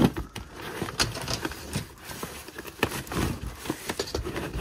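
Rummaging through a trunk of old papers and objects: paper and cardboard rustling, with a run of light knocks and scrapes as items are shifted and metal curtain rods are drawn out.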